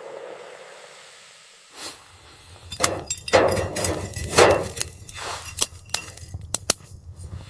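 Ice chunks knocked and clinking into a metal pot to be melted for water: a quick run of sharp knocks and clinks starting about three seconds in, over a low steady rumble.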